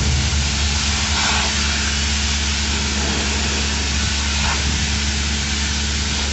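Steady drone of running machinery with a strong low hum, as a tracked sludge-cleaning robot works; two faint brief noises rise over it about a second in and again past the middle.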